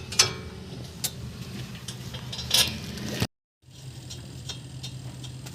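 Hand tools and bolts clinking on metal during reassembly of a car's front wheel hub and brake caliper, a few sharp clinks over a steady low hum. The sound cuts out abruptly a little past three seconds in, then the hum returns with light ticking.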